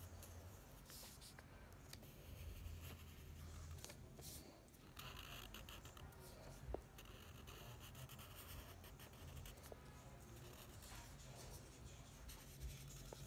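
Faint strokes of a felt-tip permanent marker rubbing across lined paper, coming in short stretches, with one light tap about halfway through.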